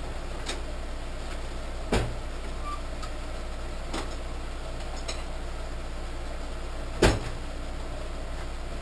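A steady low workshop hum with a few short, sharp metal clicks and knocks from hand-tapping a threaded hole with a tap handle. The two loudest knocks come about two seconds in and about seven seconds in.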